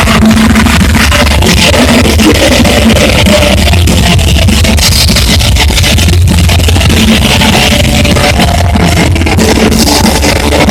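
Loud live rock band playing an instrumental passage, with distorted electric guitar over bass and drums, heavily clipped in the recording.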